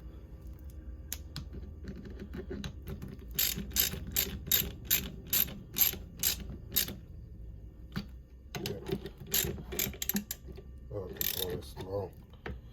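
Hand ratchet clicking in quick runs, about three to four clicks a second, as 13 mm nuts are tightened down on a battery's terminals and bus bars.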